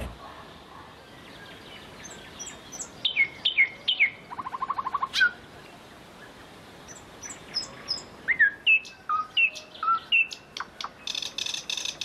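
Thrush nightingale singing, one short strophe after another with pauses between them: sharp downslurred whistles, a fast rattling run of notes, a series of falling notes and dry clicks. It ends in a dense, very fast trill.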